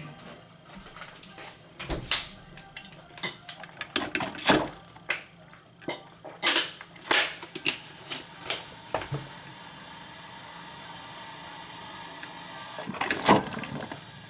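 Hard objects being handled: a run of sharp clicks and knocks over the first nine seconds, then a faint steady hiss for a few seconds, and another cluster of knocks near the end.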